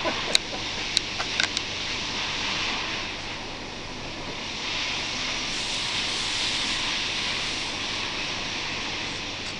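Steady sanding noise on a sculpture, a continuous hiss, with a few sharp clicks in the first two seconds.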